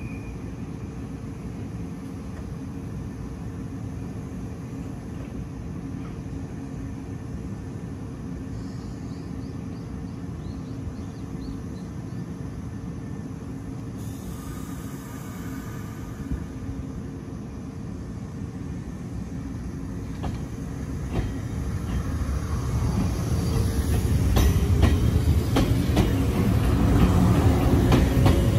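Izu Kyuko 2100-series Resort 21 electric train standing at the platform with a steady hum from its onboard equipment, then pulling away from about twenty seconds in. The sound grows louder, a motor whine rises in pitch, and the wheels click over the rail joints as it gathers speed.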